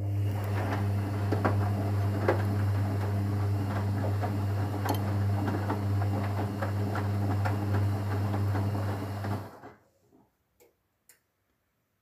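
Whirlpool FL 5065 front-loading washing machine tumbling its drum during the rinse cycle: a steady motor hum with many small irregular clicks from the wet load and water. The sound cuts off abruptly about nine and a half seconds in as the drum stops, followed by two faint clicks.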